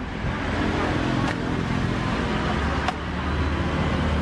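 Steady street traffic noise with a low engine hum that grows a little stronger past the middle, and a couple of faint sharp clicks.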